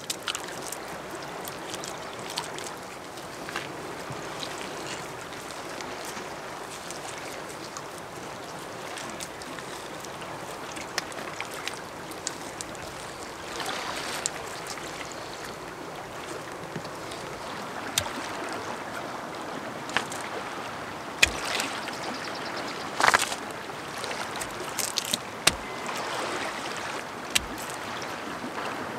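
Wet clay squelching and slapping under bare hands as it is packed over a stone kiln wall, with scattered sharp knocks that come more often in the second half as stones are set on the clay, over a steady wash of water lapping at the shore.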